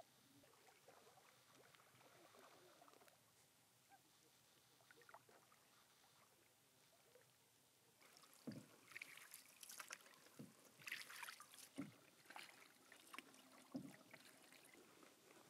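Near silence at first; then, about eight seconds in, a canoe paddle starts dipping and pulling through lake water, splashing and dripping, with a low thump at each stroke about every one and a half to two seconds.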